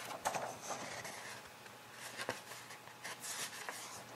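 Glossy paper brochure pages rustling and sliding as they are handled and turned, with a few light taps.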